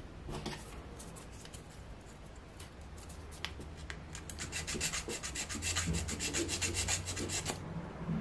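A small wooden model-kit piece being hand-sanded. At first there are a few scattered scrapes. About four seconds in comes a quick run of rubbing strokes, about six a second, which stops shortly before the end. The sanding eases a tight piece so that it will fit into its slot.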